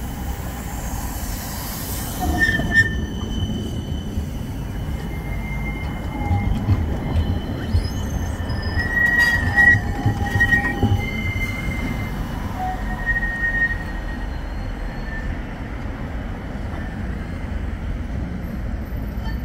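CAF Urbos tram running on rails with a steady low rumble, its wheels giving several short high-pitched squeals, most of them around the middle.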